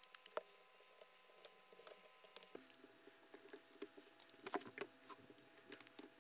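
Faint scattered clicks and taps of Irwin Quick-Grip one-handed bar clamps being set and squeezed shut across glued plywood pieces, coming more often in the second half.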